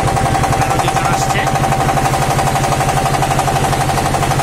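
Boat's diesel engine running steadily, with a fast, even knocking beat and a steady whine above it.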